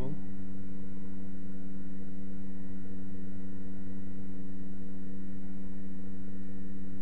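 Steady electrical hum made of several constant pitches, the loudest low down, with no other sound over it.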